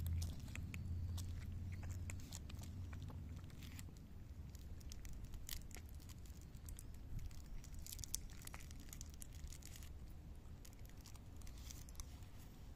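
Two cats crunching dry cat kibble from a dish close up, a string of quick, irregular crunches and clicks. A low steady rumble runs underneath, strongest in the first few seconds.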